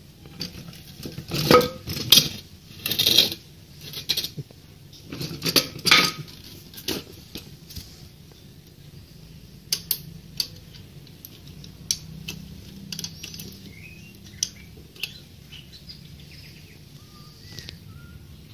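Metal clanking and rattling from a homemade wagon's steering linkage (steel square-tube axle, pivot bolt and perforated metal strap) as its handle bracket is worked by hand. There are two loud bouts of clatter in the first several seconds, then scattered lighter clicks.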